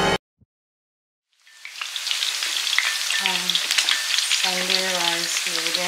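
Chicken pieces and sliced onions frying in hot oil in a wok: a steady sizzle with small crackles, fading in after a moment of silence.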